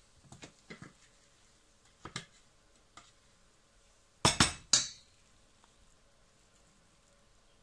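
Kitchenware clinking as fish paste is scraped from a plastic food-processor bowl into a stainless-steel pot: a few light clinks, then three quick loud knocks about four seconds in as the bowl and utensil strike the pot.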